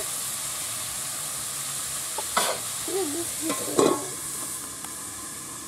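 Mixed vegetables (carrot, peas, spring onion stalks, potato) sizzling steadily in oil in a kadai, with two metal clanks, the louder one about four seconds in as a steel lid is set on the pan; the sizzling is softer once the lid is on.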